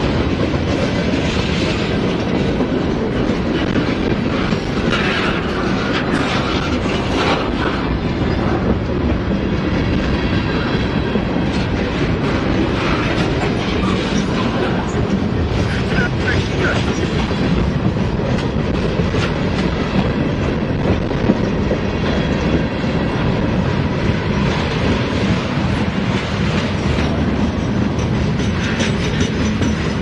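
Norfolk Southern freight train's cars rolling steadily past at close range. There is a continuous rumble with the rhythmic clickety-clack of steel wheels over the rail joints.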